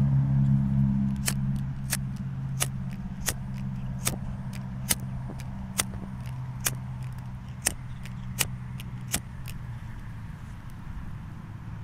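Sharp, irregular crackling clicks, roughly one or two a second, over a low held drone that slowly fades out.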